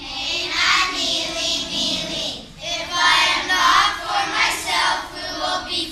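Children's choir of fourth-graders singing together, two sung phrases with a short breath between them about two and a half seconds in.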